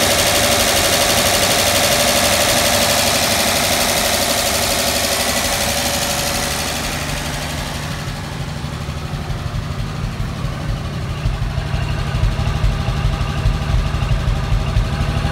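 1959 Chevrolet Apache's 235 straight-six idling steadily. At first it is heard up close at the engine, with a bright, hissy mechanical sound from the fan and belt side. Past the middle this gives way to a low, uneven pulsing exhaust note at the tailpipe.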